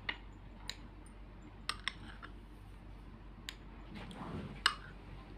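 A few scattered light clicks and taps of a spoon against glass dessert glasses as custard is spooned into trifles, the sharpest one about four and a half seconds in.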